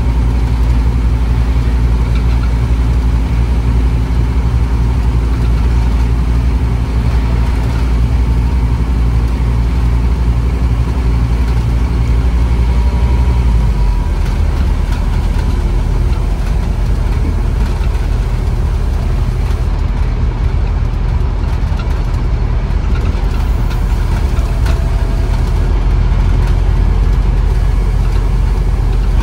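Scania N230UB OmniCity bus's diesel engine running steadily, its low note changing about halfway through.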